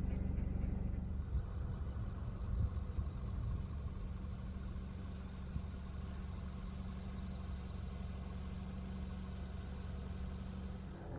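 Insects chirping in an even pulse, about three chirps a second, starting about a second in, with a steady high trill above them. A constant low rumble runs underneath.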